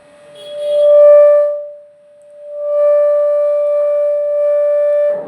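Ahuja SSA-160 amplifier sounding a loud, steady single-pitched tone through its speaker. The tone swells about a second in, dips, then rises again and holds. With its two 3055 output transistors replaced, the amplifier now gives strong output at a low volume setting.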